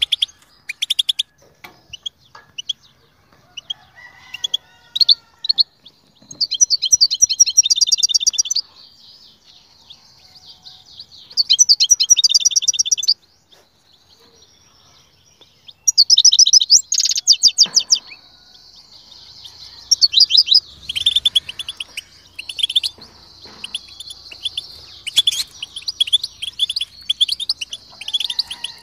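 European goldfinch singing: fast, high twittering trills in bursts of about two seconds, with scattered chirps and short pauses between, becoming near-continuous in the last third.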